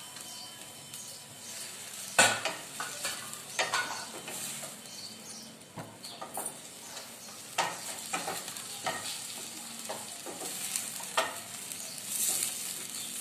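Sliced tomatoes frying in hot oil with browned onions in a stainless steel pan: a steady sizzle. A wooden spoon scrapes and knocks against the pan as it stirs, with a sharp knock about two seconds in.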